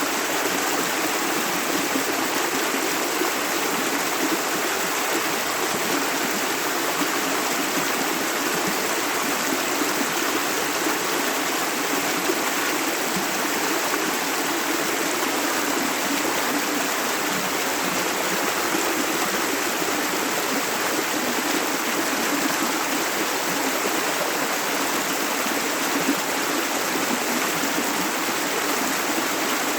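Shallow river water running over stones, a steady rushing and babbling with no breaks.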